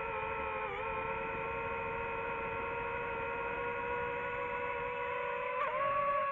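DJI FPV drone's motors and propellers whining steadily. The pitch dips briefly just under a second in and steps up near the end as the throttle changes.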